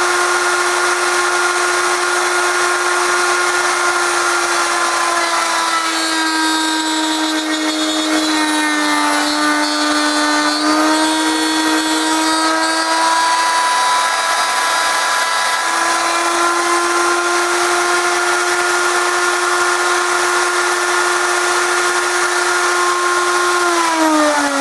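Router on a router table running at speed with a steady high whine, its pitch dropping for several seconds while it cuts into wood, then recovering. Near the end it is switched off and the whine falls as it spins down.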